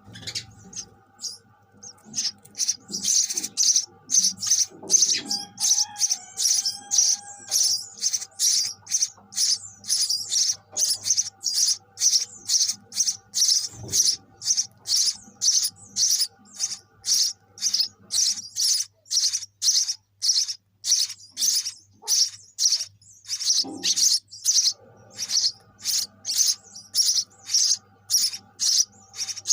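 Sparrows cheeping in a long, even series of short high calls, about three a second, with a faint steady hum underneath.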